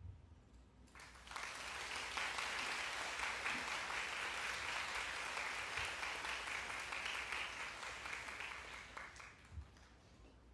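Audience applauding in a concert hall. The applause starts about a second in, holds steady, and fades away near the end.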